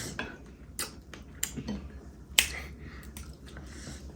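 Scattered sharp cracks and clicks of a seafood boil being eaten by hand, as shells snap and are handled. The loudest crack comes about two and a half seconds in.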